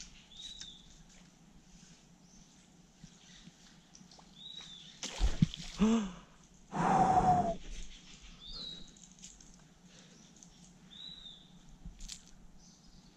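A peacock bass strikes a topwater lure in shallow flooded forest water, with a sudden splash about five seconds in and a second, longer burst of splashing about two seconds later. A bird's short call, falling in pitch, repeats several times.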